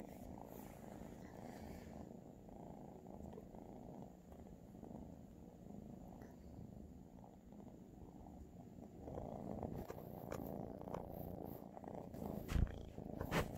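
Three kittens purring together close by, a steady low rumble. In the last few seconds it grows louder, with rustling and a few sharp knocks from the phone being handled, the loudest about twelve and a half seconds in.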